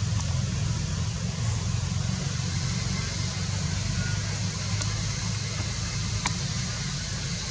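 Steady outdoor background rumble with an even hiss, and two faint ticks about five and six seconds in.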